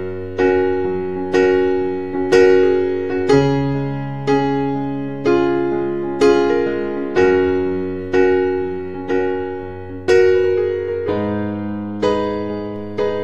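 Background music on an electric piano: slow notes and chords struck about once a second, each fading away, over sustained bass notes.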